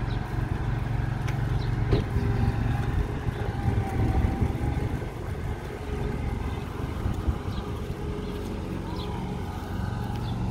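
Stryda 600S amphibious boat's engine running steadily as it drives on its wheels across tarmac, a low even hum, with a brief knock about two seconds in.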